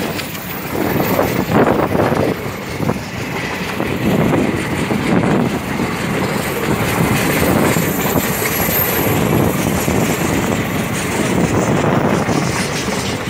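Coaches of a passenger train rolling past close by, the wheels knocking and clattering on the track in a continuous, uneven run.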